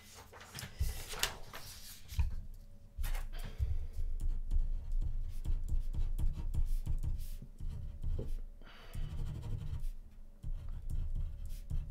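A ballpoint pen writing on paper laid on a desk: scratchy strokes with repeated low bumps from the pen pressing through to the table, the bumps being the loudest sound. A faint steady tone sits underneath through the middle.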